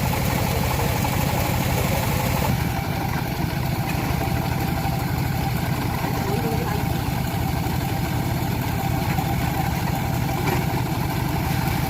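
Band sawmill running steadily with a constant engine drone; a high hiss over it drops away about two and a half seconds in.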